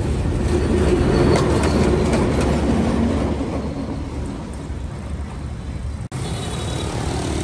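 D12E diesel locomotive running past at close range: a heavy low rumble with scattered clicks from the wheels and rails, loudest about a second in and then easing off. Just after six seconds the sound cuts abruptly to a steady street-traffic background.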